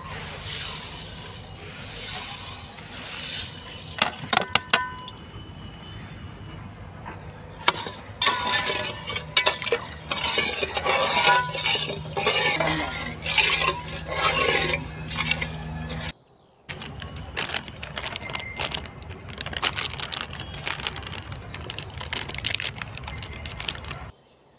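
Sugar poured from a plate into water in an aluminium pot, hissing, then a steel spoon stirring the sugar syrup, scraping and clinking against the pot. After a break in the sound there are scattered clicks and rustling.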